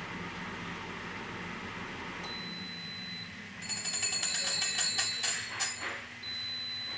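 Pinxia air fryer's fan humming, then stopping a little over two seconds in, followed by a high steady beep about a second long. Then a loud burst of rapid metallic ringing, like a small bell rattling, for about two and a half seconds, and a second high beep near the end.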